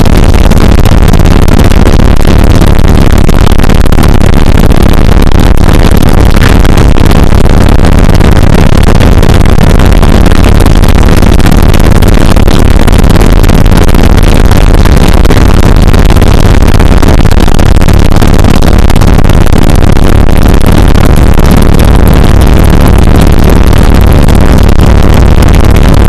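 Steady, very loud engine and airflow noise inside a small aircraft's cabin in low-level flight, loud enough to overload the recording.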